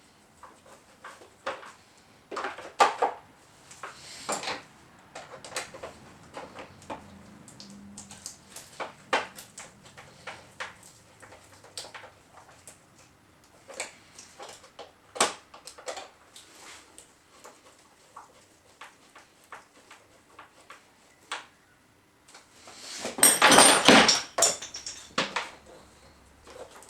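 Irregular clicks and knocks of small pressure washer pump parts and tools being handled during reassembly, with a louder stretch of clattering about three-quarters of the way through.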